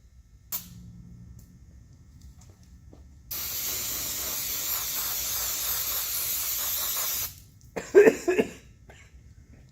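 Aerosol throttle body cleaner sprayed in one steady hiss of about four seconds, starting a few seconds in and stopping abruptly, to clean dirt out of a diesel truck's throttle body. A short burst of voice follows near the end.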